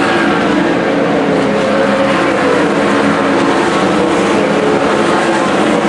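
Winged 410 sprint cars' V8 engines running at speed around a dirt oval during hot laps. The engines are loud and steady, and their pitch rises and falls gently as they go through the turns.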